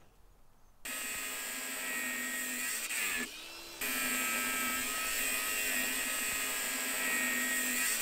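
A power tool's high-speed electric motor whining steadily, starting about a second in and dropping off briefly a little after three seconds before picking up again.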